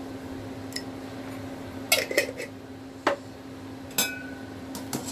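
A metal utensil clinking against a stainless steel cooking pot four or five times, one strike near the end ringing briefly, over a steady low hum.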